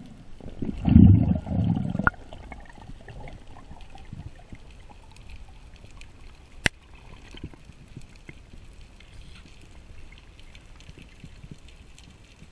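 Underwater sound heard through a camera housing on a breath-hold spearfishing dive: a loud low rush of moving water about a second in, a single sharp click a little past the middle, and faint crackling the rest of the time.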